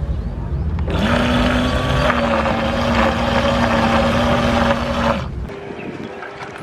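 Twin electric motors of a radio-controlled bait boat running with a steady whir over a hiss of water. They ease off at the start, spin back up about a second in, and cut out about five seconds in.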